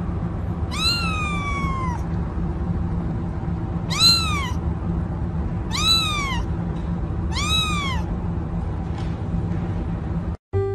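Kitten meowing four times in high calls, each rising then falling in pitch, the first one longest. A steady low background noise runs beneath them.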